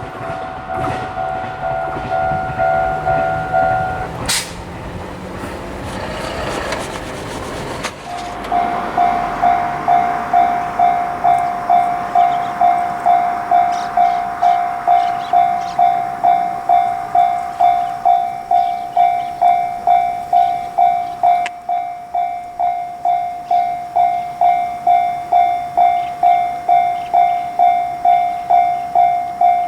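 Japanese railroad level-crossing warning bell starting about eight seconds in and ringing its even, repeating 'kan-kan' dings to the end. Before it, a steady held tone and the rumble of a train.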